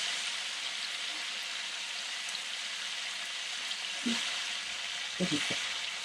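Pork belly pieces and garlic sizzling in rendered fat and soy sauce in a wok: a steady frying hiss. A few brief low sounds come about four and five seconds in.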